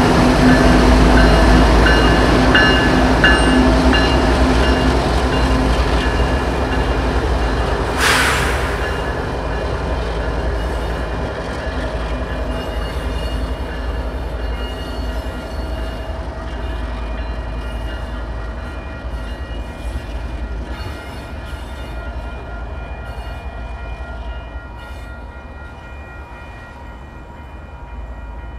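Canadian Pacific GE ES44AC diesel locomotives rumbling past close by, then fading as they move away. There is a short sharp burst of noise about eight seconds in. From about twelve seconds on, a grade-crossing warning bell rings steadily over the fading engines.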